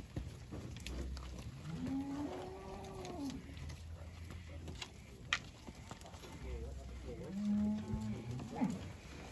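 Cows mooing: two long moos, the first about two seconds in rising and then falling in pitch, the second near the end lower and steadier.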